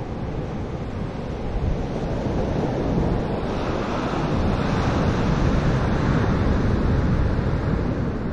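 Ocean surf breaking and washing up a sand beach, swelling louder about three and a half seconds in, with wind buffeting the microphone.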